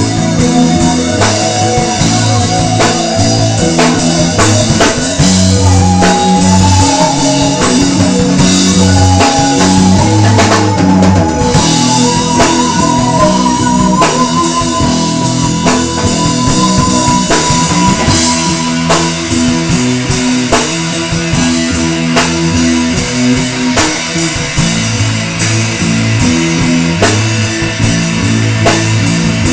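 Rock band music: drum kit and guitars playing steadily, with a lead melody of long held, wavering notes that step upward during the first half.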